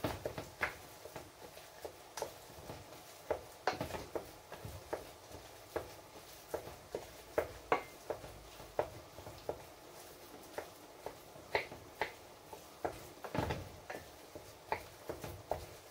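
Irregular light clicks and knocks of a kitchen utensil against cookware, about one or two a second, a little louder now and then.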